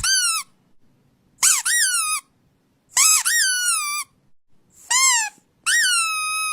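Five high-pitched squeaks played for a dog to react to, each rising briefly then falling in pitch; the last one is held steady for over a second.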